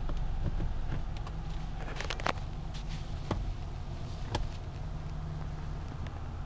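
Mark VII AquaJet XT car wash gantry moving over a car, heard from inside the cabin: a steady low rumble with scattered sharp clicks and taps, a cluster about two seconds in and another about four and a half seconds in.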